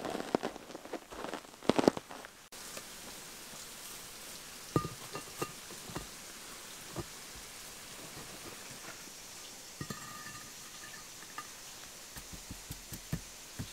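Work boots crunching as they tread down a loose granular bed for about two and a half seconds. Then, over a steady hiss, flat firebrick slabs are set down on the bed with a few scattered light clinks and knocks.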